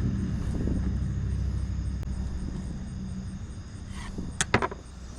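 Low engine rumble of a passing motor vehicle, fading away over several seconds, with a few sharp clicks about four and a half seconds in.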